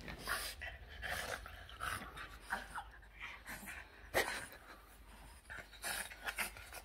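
Boston terrier making short breathy noises and small squeaks while squirming and playfully mouthing a person's hand, with one sharp knock about four seconds in.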